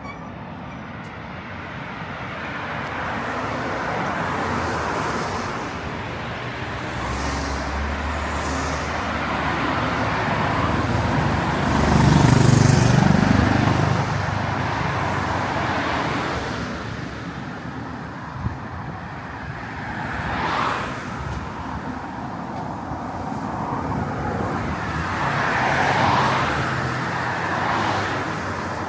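Street traffic: a steady hum of road noise with several vehicles passing one after another. The loudest pass, about twelve seconds in, carries a low rumble.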